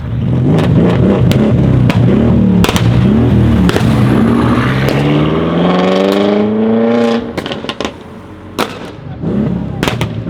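BMW M5 F90 Competition's twin-turbo V8, stage 2 tuned to about 750 hp, revving in a few quick blips, then climbing steadily in pitch for about three seconds before the throttle is cut sharply. The exhaust then gives a string of sharp crackles and pops on the overrun, with the engine picking up again near the end.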